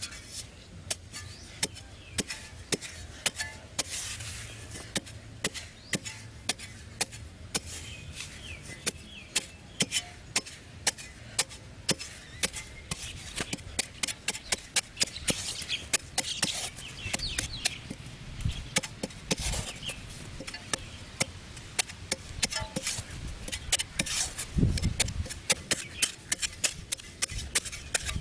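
Wood being chopped with a blade in quick, repeated strikes, several a second.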